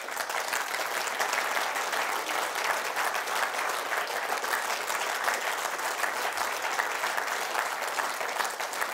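Audience applause: many hands clapping in a dense, steady patter.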